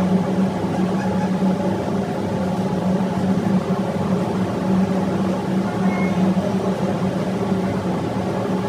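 Steady drone of a running marine diesel auxiliary engine (generator set) in a ship's engine room: a constant deep hum with a strong unchanging tone and no change in speed.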